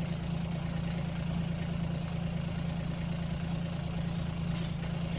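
Tractor engine running at a steady, even speed, with a constant low hum and no revving.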